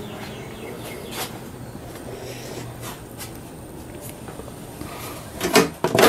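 Low steady shop room tone with a few light clicks. Near the end comes a quick series of louder knocks and rattles as the garage door opener's metal cover is handled.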